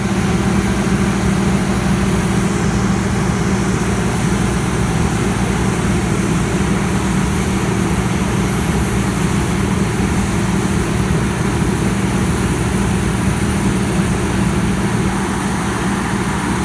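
A heavy diesel engine running steadily, a constant low hum under a broad, even rush of machinery noise.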